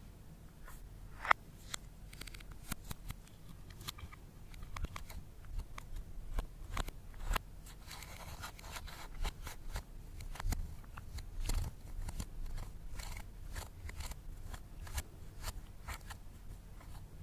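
Irregular small clicks, crackles and crunches from makeup and slime being worked by hand, with one sharper snap about a second in.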